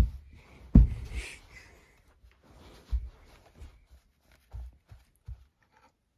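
Soft low thumps and rustling from handling a plush toy puppet as it is moved about a clear plastic tub on carpet, the loudest bump about a second in.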